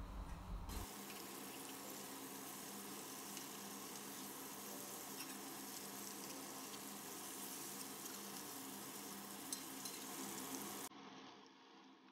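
Marinated salmon pieces shallow-frying in hot oil in a pan: a faint, steady sizzle with light crackling. It stops abruptly about eleven seconds in.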